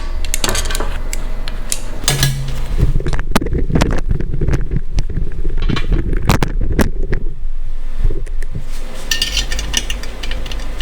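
Irregular metallic clinks and knocks from work on a thin sheet-steel motorcycle exhaust, over a steady low hum.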